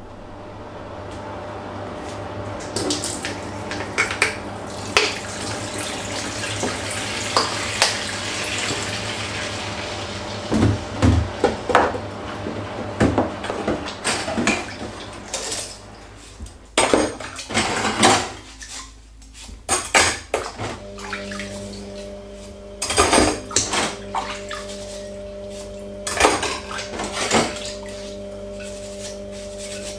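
Hand washing-up at a stainless-steel sink: a tap running into the basin at first, then dishes, pans and cutlery clattering and knocking together as they are scrubbed. A steady hum comes in about two-thirds of the way through.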